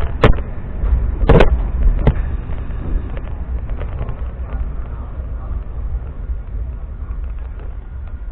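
MEMU electric train running: steady low running noise with three sharp clanks in the first two seconds, then the noise slowly grows quieter.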